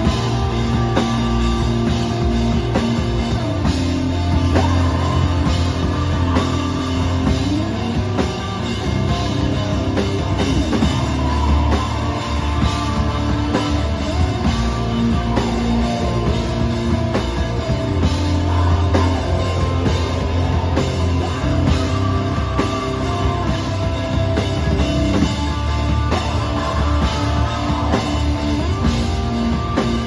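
A live rock band playing, with electric bass guitar and electric guitar, loud and continuous.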